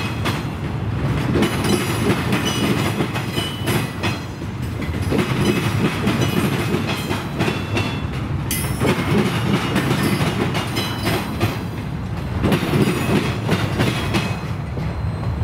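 Train's cars rolling past: a steady rumble of wheels with frequent clicks and clatter over track joints, and short high-pitched wheel squeals now and then.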